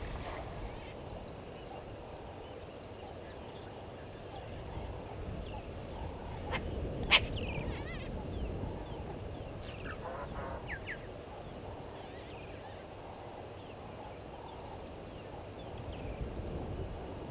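Wild birds calling over a steady outdoor hiss: scattered short chirps and warbling notes, with one sharp click about seven seconds in.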